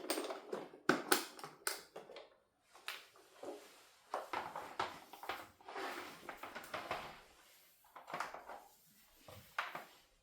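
Hands opening a box of toy packaging: irregular rustling and crinkling, with a cluster of short sharp clicks in the first couple of seconds.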